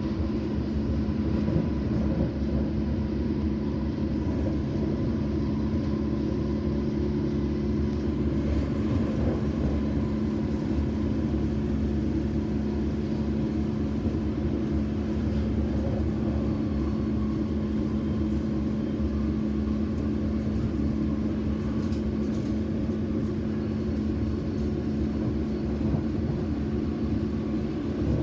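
London Underground S Stock train running at a steady speed, heard from inside the carriage: a continuous rumble from the wheels on the rails with a steady low hum.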